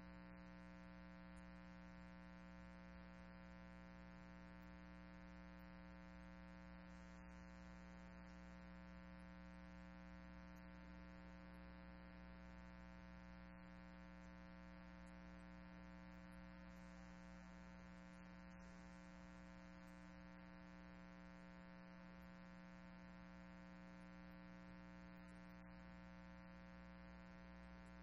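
Near silence with a steady electrical hum that stays unchanged throughout.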